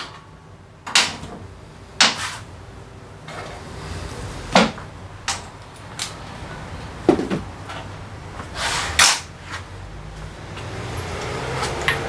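Workshop clatter of a removed scooter muffler and hand tools being put down and handled on a steel lift table. It comes as a scattered series of separate metal clanks and knocks, about eight in all.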